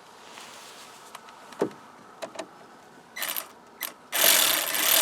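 A few sharp clicks and knocks of metal hand tools being handled, then a loud, steady, noisy mechanical sound that starts about four seconds in and keeps going.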